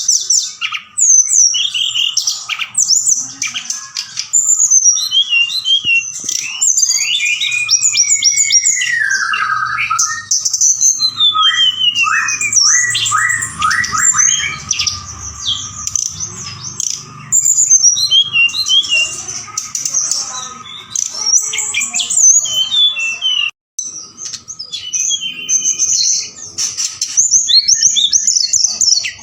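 Tledekan gunung singing a fast, varied song of chirps, whistled glides and trills, almost without pause, broken once briefly about twenty-three seconds in. This is the lively full song used as a provocation call to get captive birds to answer and sing.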